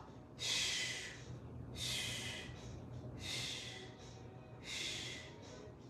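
A woman breathing hard to catch her breath after a cardio round: four loud breaths, about one every second and a half.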